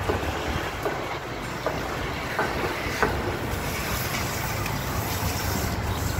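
A child's small bicycle rolling across paving tiles: a steady rushing noise with a few light clicks and rattles as it goes.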